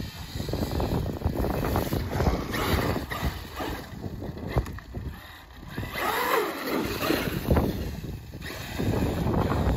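Large radio-controlled monster truck driving, its motor whining and rising and falling in pitch as it speeds up and slows, mostly about six to seven seconds in. Wind rumbles on the microphone throughout.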